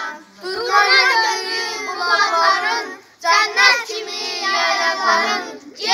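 A small group of children singing together in Azerbaijani without accompaniment: a patriotic song about Azerbaijan, sung in two phrases with a short breath about three seconds in.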